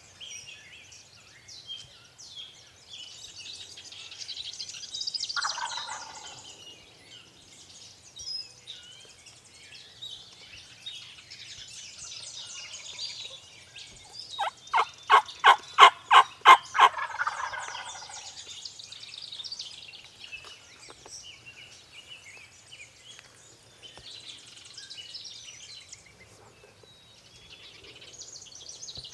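Wild turkey tom gobbling loudly and close, a rapid rattling run of about ten notes lasting a couple of seconds midway through, with a shorter, fainter call about five seconds in. Songbirds chirp throughout in the dawn chorus.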